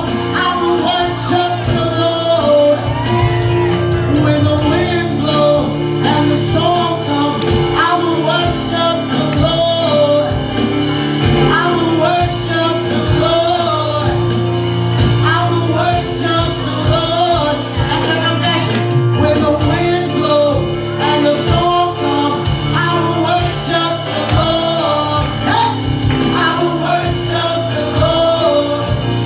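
Gospel worship music: a voice singing a wavering melody over held chords, with a steady beat.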